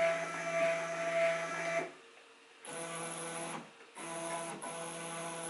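Home-built CNC machine's stepper motors whining steadily as the axes are jogged with a handheld jog control. The whine stops about two seconds in, starts again, breaks off briefly, then resumes at a lower pitch.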